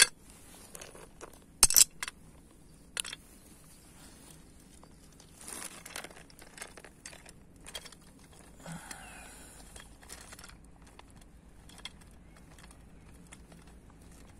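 Stones dropped one after another into a toy dump truck's tipper bed, making sharp knocks at the start and about a second and a half later, with a smaller knock soon after. Then quieter scraping and crunching as the loaded toy is pushed over gravel.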